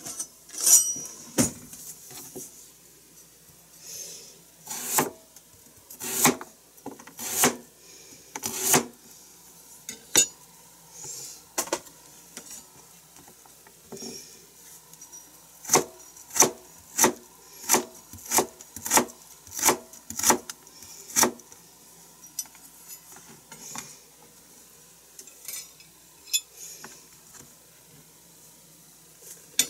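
Kitchen knife cutting a carrot into thin strips on a plastic cutting board: sharp knocks of the blade hitting the board, scattered at first, then a steady run of about two chops a second in the middle.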